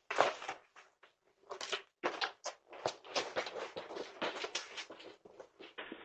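Packages being handled on a doorstep: an irregular run of crinkling, rustling and light knocks from plastic-wrapped goods and boxes being grabbed and moved, picked up by a doorbell camera's microphone.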